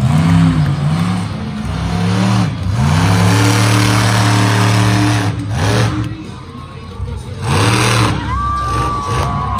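Monster truck engine revving hard in repeated surges, the pitch climbing and falling back with each blip of the throttle. It drops away briefly past the middle, then revs up hard again near the end as the truck rears onto its back wheels.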